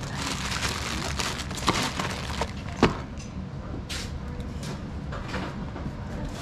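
Plastic parts bag rustling as it is handled, then a few sharp knocks and some lighter clatter as things are set down on a workbench, the loudest knock about three seconds in, over a steady low hum.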